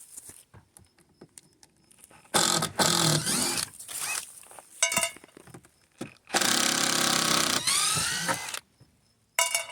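Cordless drill-driver backing screws out of a wooden platform: several bursts of the motor spinning, the longest about two seconds, some rising in pitch, with small knocks and clicks between.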